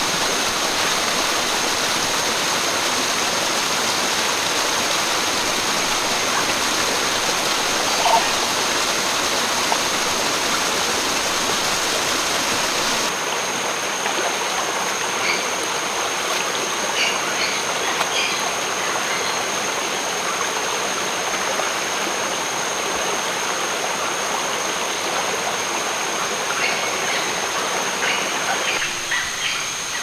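Water rushing over the rocks and small cascades of a boulder-strewn rainforest stream: a steady wash of noise, with a thin, steady high tone over it. The sound shifts slightly about halfway through.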